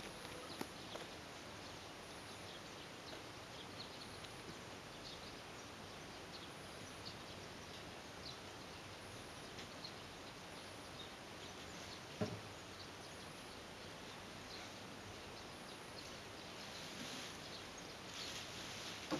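Faint outdoor ambience with scattered light clicks and one sharp knock about twelve seconds in, as a kayak sail's mast rig is handled; near the end, a rustle as the sail fabric is raised.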